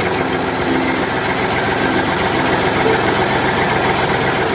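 Tractor engine running steadily, a low rumble with a fast, even pulse.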